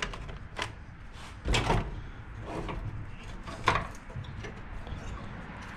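Scattered metallic knocks and clunks of tools and parts being handled at an engine mount. There is a short, louder clatter about a second and a half in and a sharp knock near four seconds.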